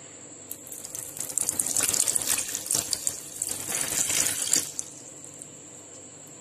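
Cold water poured from a glass into an empty stainless steel blender jar, splashing onto the metal bottom and blades for about four seconds.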